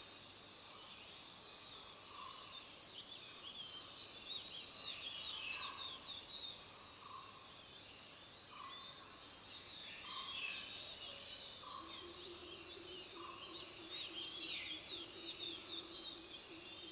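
Birdsong in woodland: several small birds twittering in quick high chirps and short glides, over two steady high insect tones, with a short lower call repeating every second or two.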